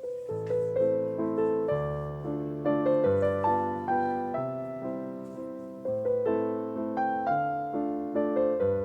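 Background piano music: a gentle, slow melody over held bass notes.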